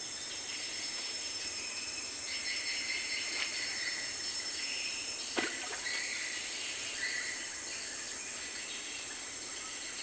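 Riverside insects chirring steadily, with one short knock about halfway through.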